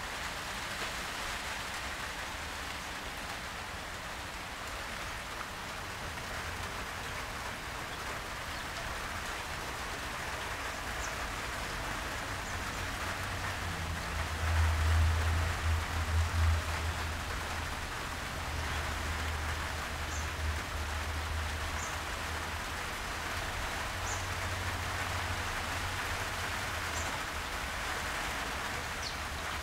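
Heavy rain falling steadily, a dense even hiss. About halfway in, a low rumble swells for two or three seconds and is the loudest part.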